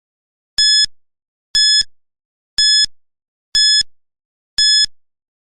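Countdown timer sound effect: five short electronic beeps, evenly spaced about a second apart, counting down the time given to answer.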